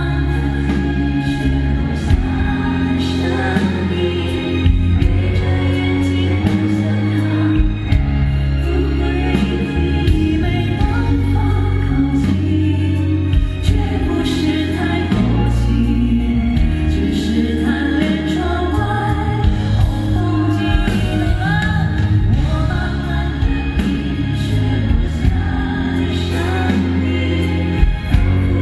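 A male singer singing live into a handheld microphone over band accompaniment with a strong, steady bass.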